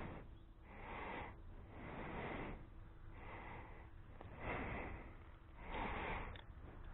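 A person breathing close to the microphone, a series of breathy rushes about once a second, over a low rumble.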